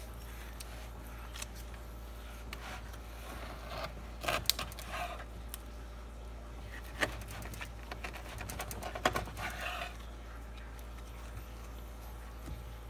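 Long butcher knife slicing through dry-aged beef and scraping along the rib bones while deboning a bone-in rib roast, with light knocks on a wooden cutting board. The scraping and clicking come in short spells, loudest about four seconds in and again around nine to ten seconds, over a steady low hum.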